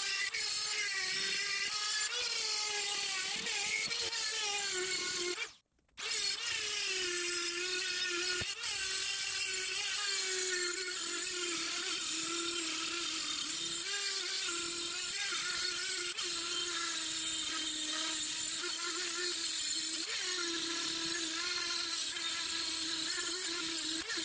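Dremel rotary tool running at high speed, its steady whine wavering in pitch as a burr grinds the intake port of an aluminum cylinder head. It cuts out for a moment about five and a half seconds in, then runs on.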